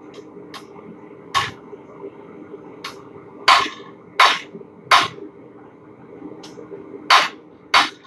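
Blacksmith's hammer striking hot steel on an anvil: about six heavy blows at uneven intervals, with a few lighter taps between them.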